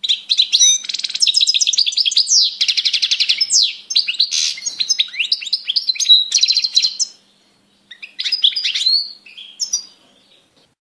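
European goldfinch singing: a fast, unbroken run of high twittering, trilled and sweeping notes. It breaks off about seven seconds in, gives one more short phrase, and falls silent near the end.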